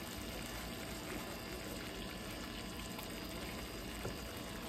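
Thick mole sauce with chicken simmering in a frying pan on a gas burner: a steady bubbling hiss.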